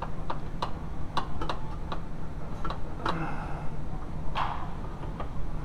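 Irregular metallic clicks and clacks from a Mk3 VW shifter linkage lever being wiggled and pulled to pop it off the relay lever's ball joint, about nine in all, the loudest a little past halfway.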